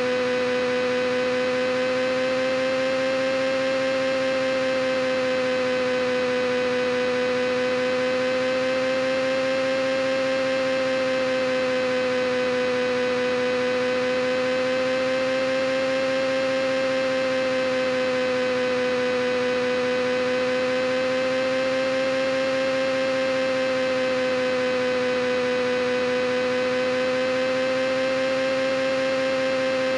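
A steady electrical-sounding hum that runs unbroken, with many overtones above it, its pitch wavering slowly up and down by a small amount.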